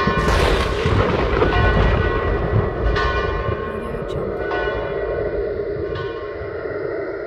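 A deep bell tolling about every one and a half seconds, each stroke ringing on over a low rumbling drone, as part of a soundtrack that fades out near the end.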